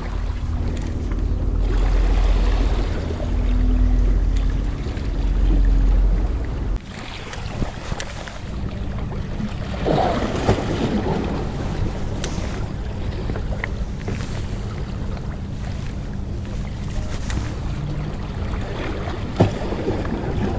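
Seaside ambience with a steady low motor hum, typical of a boat engine on the water. A heavy low rumble runs for the first several seconds, then cuts off suddenly about seven seconds in.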